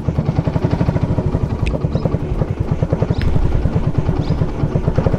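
Vehicle engine idling with a fast, steady throb.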